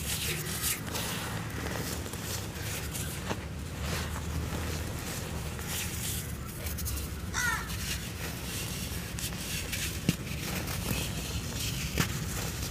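Dry grey cement crumbled and crushed by hand, a steady soft gritty crunching with powder sifting down and a few sharp clicks. A crow caws once, about halfway through.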